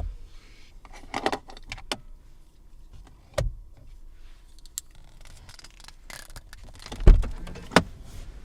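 A series of sharp clicks and knocks from handling the fittings of a Lexus LX 450d's interior, with a heavier thump and a click about seven seconds in.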